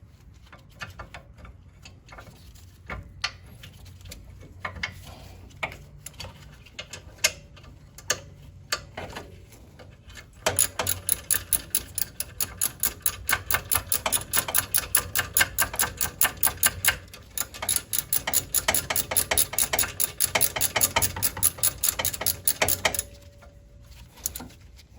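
Ratchet wrench clicking while backing out a rear brake caliper bolt with a 7 mm Allen bit: scattered clicks at first, then from about ten seconds in a long run of rapid, even clicks that stops shortly before the end. The bolt keeps turning for a long time, which the owner takes as a sign that it is already loose but stuck in its tube.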